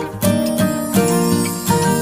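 Background music led by acoustic guitar, with notes struck about every half second over held chords.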